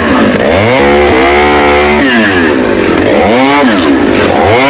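Chainsaw engine revved up and down repeatedly. Its pitch climbs and holds high for about a second, drops, then rises and falls again in quick throttle blips.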